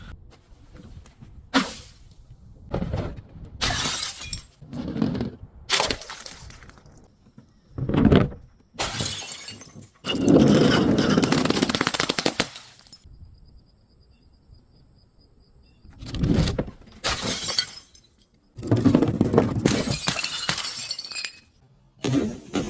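Glass bottles and other brittle objects being smashed and crushed: a string of crunching, shattering breaks, some short and sharp, some longer grinding crunches, with short pauses between.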